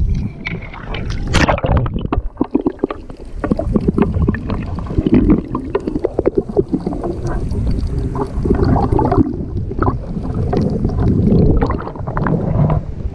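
Seawater sloshing and gurgling around a GoPro camera dipped in and out of the water beside a kayak. It sounds muffled and rumbling while submerged, with many short knocks and splashes throughout.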